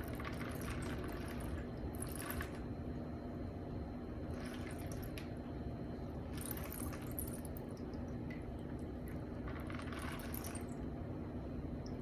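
Small shells of a wind chime clinking and rattling against each other in four short bursts, over a steady low hum.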